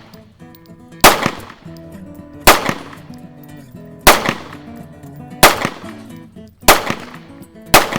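Beretta PX4 Storm semi-automatic pistol fired six times in slow succession, about one shot every second and a half, as the shooter empties the magazine.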